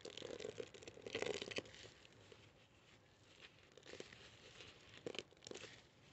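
Wet kitchen sponge squeezed and worked in a bowl of soapy laundry-powder paste: crackling, squelching bubbles, loudest in the first second and a half, then softer crackles with a few sharp pops.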